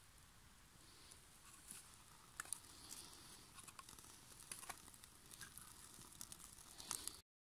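Faint, scattered crackles and ticks from burning birch bark and wood shavings as a freshly lit kindling fire catches. The sound cuts off suddenly near the end.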